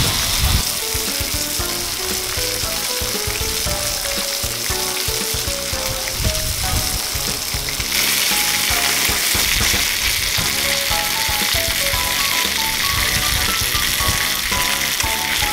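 Beef steaks sizzling in hot oil in a small Lodge 6½-inch cast-iron skillet, a steady frying hiss that grows louder about halfway through.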